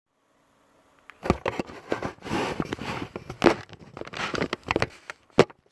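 Handling noise: a quick run of clicks, knocks and rustling that starts about a second in, with one sharp knock near the end.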